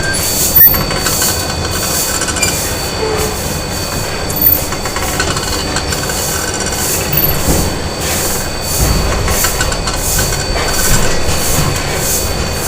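Factory machinery running: a steady mechanical din with a low rumble, a faint constant high whine and a regular rhythmic pulsing, with a sharp clank about half a second in.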